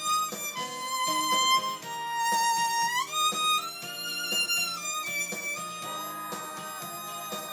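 Violin played with a mute, a slow song melody in long held notes, sliding up to a higher note about three seconds in.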